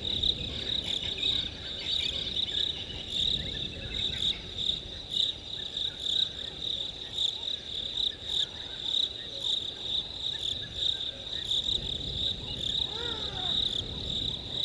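A steady, high, pulsing chirr of night insects. About thirteen seconds in, a brief animal call of a few quick rising-and-falling notes sounds over it.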